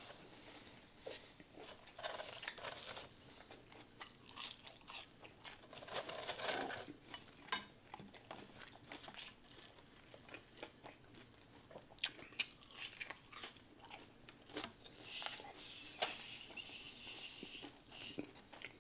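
Quiet chewing and biting of fast food: many soft crunches and mouth clicks, irregular throughout.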